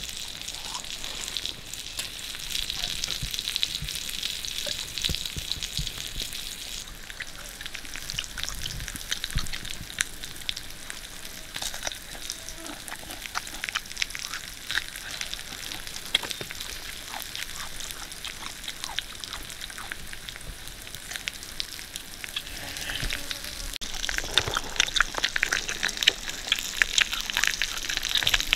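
Pig intestine sizzling on a hot stone slab over a wood fire for the first several seconds. Then close-up eating: chewing and mouth smacking with many small clicks, growing louder near the end.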